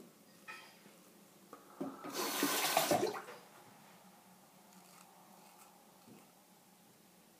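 Shavette straight razor scraping through beard stubble on the neck: a loud rasping stroke lasting about a second, a couple of seconds in, with fainter scratchy strokes before and after.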